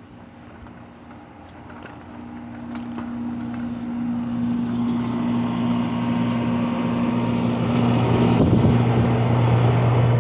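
Outdoor air-conditioner condenser units running in cooling mode: a steady compressor hum under the rush of the condenser fans, growing steadily louder over the first eight seconds and then holding.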